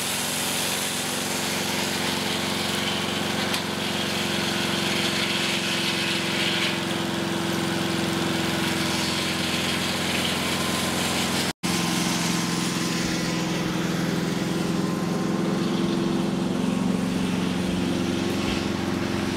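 A Mobile Dimension Saw's engine running steadily under load while its circular blade saws through a huge log, with a hiss from the cut. The sound drops out for an instant about halfway through, then the engine runs on at the same pitch.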